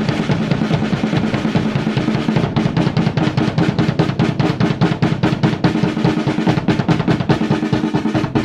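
Drum kit played with sticks in a fast, even, unbroken stream of strokes, hands alternating on a drum while bass drum pedal strokes run underneath. This is a hands-against-feet coordination exercise: the hands play twice as fast as the feet, then the feet twice as fast as the hands.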